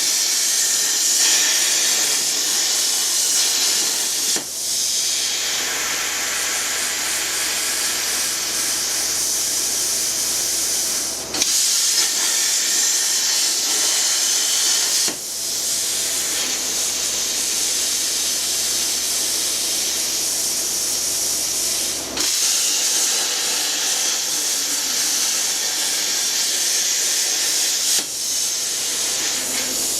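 Plasma cutter cutting metal: a loud, steady hiss that dips briefly five times and picks up again each time.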